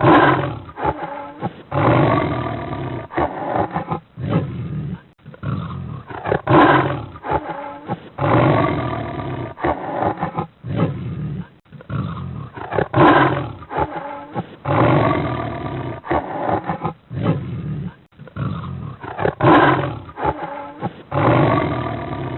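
Big cat giving long, loud roaring growls with short gaps between them, the same sequence of calls repeating about every six and a half seconds.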